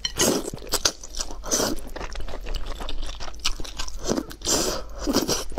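Wide flat noodles in sesame paste sauce being slurped into the mouth in several long slurps, with wet chewing and small mouth clicks in between, close to the microphone.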